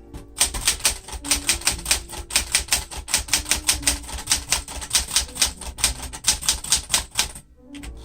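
1966 Sears Citation 12 typewriter, a Smith-Corona-built machine, being typed on at a quick, steady pace, its keys clacking several times a second. The typing stops near the end.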